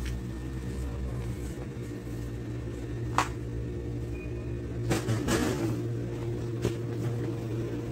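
Steady low mechanical hum, with a sharp click about three seconds in and a few more clicks and knocks a couple of seconds later.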